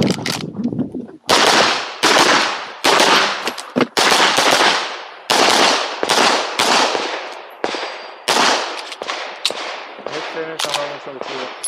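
Semi-automatic pistol fired in quick strings of shots at close range. Each shot is a sharp crack with a short decay, about twenty shots in all, some in fast pairs and some separated by brief pauses.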